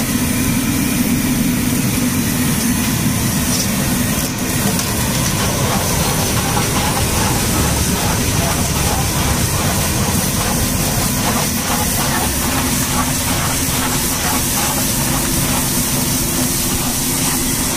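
Steady low machine-like rumble with an even hiss over it, as puris deep-fry in hot oil in a large iron kadai.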